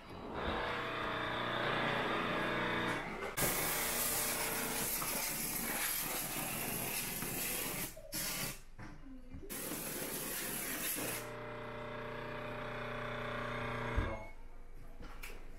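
Portable steam cleaner running: its unit hums steadily while steam hisses out of the hand wand. The hiss is loudest in two long spells, from about three seconds in to about eleven seconds in, broken briefly near eight seconds. After that the hum carries on with less hiss and fades near the end.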